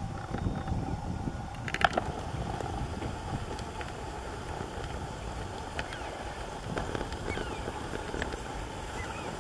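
Open-air ambience: a steady low rumble of wind on the microphone, with a few faint, short bird chirps and a quick cluster of clicks about two seconds in.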